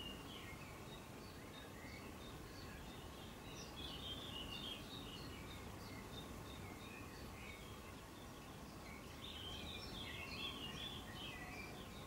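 Small garden birds chirping and twittering in quick clusters, busiest about four seconds in and again near the end, over a faint, steady low background rumble.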